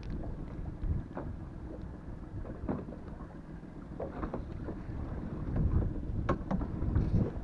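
Wind buffeting the microphone over the wash of sea water around a small inflatable boat, with scattered short clicks and knocks of a fishing rod and squid jig being handled.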